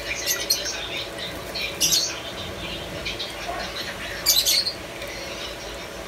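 Pot of chicken broth boiling on a gas burner, a steady hiss, with a few short high squeaks or chirps over it, the loudest about four seconds in.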